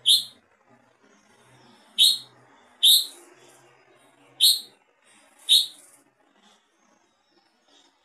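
Red-whiskered bulbul calling: five short, sharp, high chirps, one to two seconds apart.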